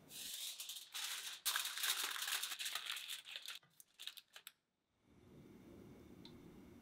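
Aluminium foil crinkling and crackling as it is pressed and folded over a baking dish, dense for about three and a half seconds, then a few last crackles before it stops. A faint low steady hum follows from about five seconds in.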